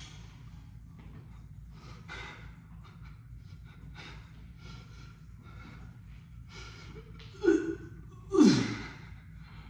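A man breathing hard and fast, out of breath and nauseous after an exhausting abdominal set. Near the end come two loud voiced gasps that fall in pitch.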